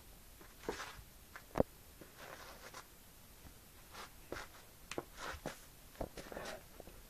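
Great Dane puppy scratching and nosing at a carpet: irregular scratchy rustles and short clicks, with one sharper knock about a second and a half in.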